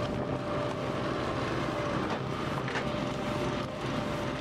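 Hydraulic log splitter running steadily under load, its engine and pump carrying a held tone while the ram drives a large round log through a multi-way splitting wedge.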